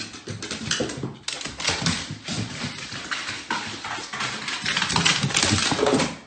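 A bull terrier's claws and paws clattering on hardwood stairs: a quick, irregular run of taps and knocks that grows louder near the end.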